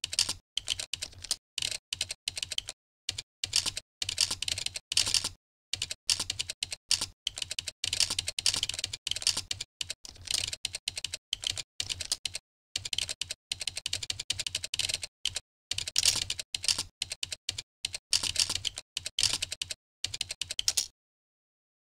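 Fast typing on a computer keyboard: runs of key clicks in bursts, broken by short completely silent pauses between commands, stopping shortly before the end.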